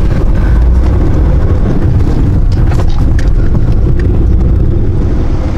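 Marshrutka minibus cabin noise on the move: loud, steady low rumble of engine and tyres on the road, with scattered rattles and knocks from the bodywork.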